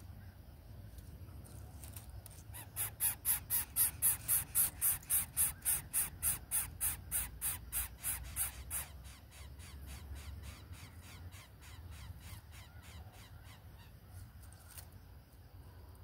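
Greater coucal chick begging at the nest as it is fed: a run of harsh, hissing rasps about three a second. They start a few seconds in, are loud for about six seconds, then go on much fainter.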